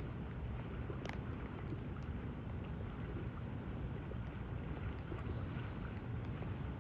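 Steady wind rumble on the microphone in the rain, with faint scattered ticks of raindrops and a brief click about a second in.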